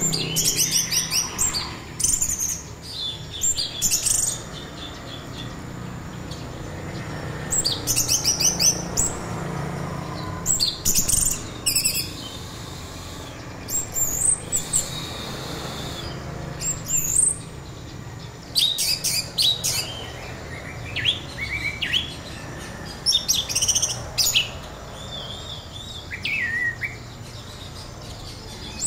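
Orange-headed thrush singing in the rapid, chopped 'trotol' style: short bursts of fast high notes every one to three seconds, with some lower whistled phrases between them.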